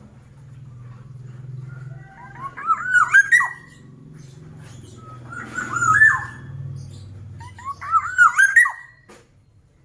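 Black-naped oriole (kepodang mas) singing: three short, fluty whistled phrases of looping notes, about two and a half seconds apart.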